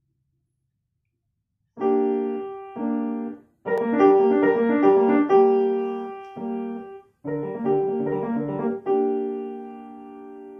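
Solo piano playing, starting about two seconds in with two separate chords, then a quicker melody over chords, and ending on a long held chord that slowly fades.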